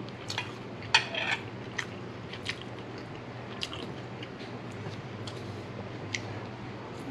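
Shell-on shrimp in sauce being pulled apart and peeled by hand close to the microphone: scattered small crackles and wet clicks, the loudest cluster about a second in. A low steady hum runs underneath.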